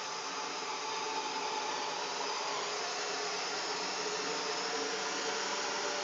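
Original iRobot Roomba robot vacuum running: a steady whir of its brush and vacuum motors with a faint whine that wavers slightly in pitch.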